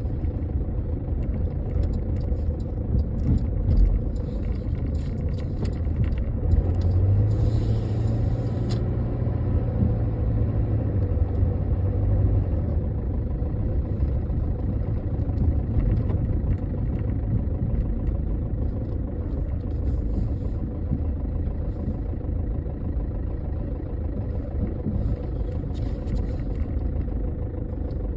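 2011 Chevy HHR's four-cylinder engine running with a rough idle and a low rumble, the car logging a P0011 code (intake camshaft timing over-advanced). A steadier low hum comes in about seven seconds in and fades about five seconds later.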